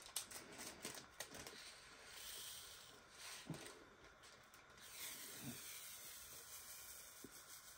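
Faint handling sounds of a small plastic bag of resin diamond-painting drills being opened and the drills tipped into a plastic tray: light clicks in the first second or so, then soft rustles.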